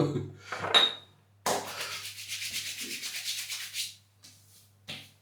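Palms rubbing post-shave balm together and over the skin: a fast, even rubbing lasting a little over two seconds, starting about a second and a half in.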